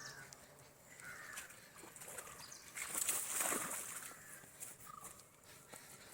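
Outdoor bird calls, including short chirps, with a louder noisy rush lasting about a second, about three seconds in.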